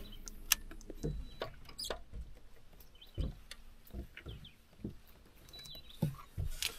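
Scattered soft thumps and small clicks of people moving on a fishing boat's deck while handling a freshly caught walleye.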